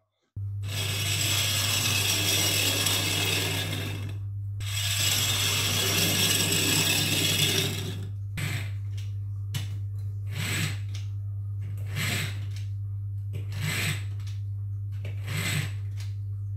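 Ratcheting, gear-like rasping from a 3D-printed rubber-band-powered car's plastic mechanism: two long stretches of about three and a half seconds, then short pulses about every second and a half, over a steady low hum.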